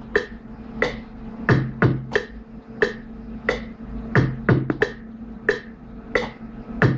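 Sparse hip-hop beat playing without vocals: sharp, clicky percussive hits in a repeating rhythm of about two to three a second, some with a short low hum under them.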